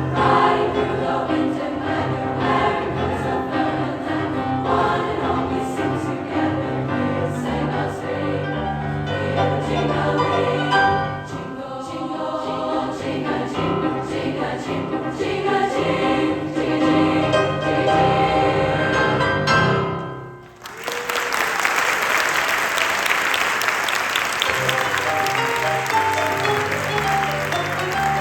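Sopranos and altos of a choir singing a Christmas song with instrumental accompaniment. About two-thirds of the way through the singing stops and applause follows.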